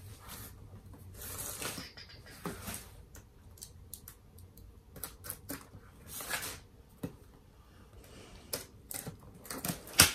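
Cardboard shipping box being opened and its packaging handled: rustling, scraping and scattered clicks, with a sharp click just before the end.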